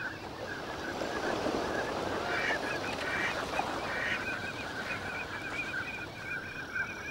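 A large flock of wild ducks and other waterfowl calling at once, a dense overlapping chatter of quacks and honk-like calls. In the second half a rapid run of short repeated calls stands out.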